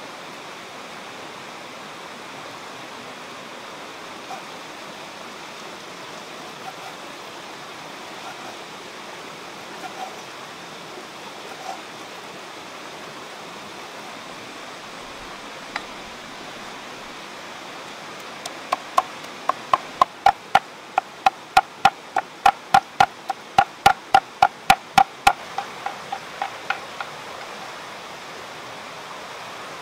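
A cleaver chopping on a thick round wooden chopping block: a fast, even run of sharp knocks, about three a second, lasting several seconds past the middle, each with a short woody ring. A few lone knocks come earlier, all over the steady rush of a stream.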